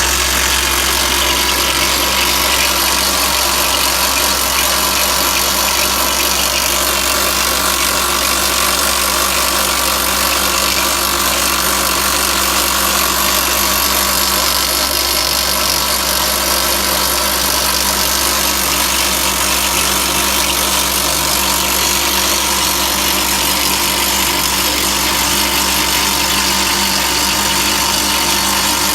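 Atlas Copco FlexiROC surface drill rig running loud and steady, its engine and percussive rock drill working at drilling blast holes.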